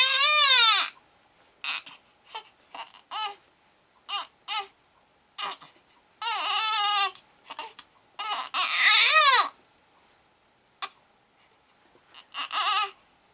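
Baby crying: high, wavering wails about a second long, one at the start, one about six seconds in and one about nine seconds in, with short whimpers and sobbing sounds between them.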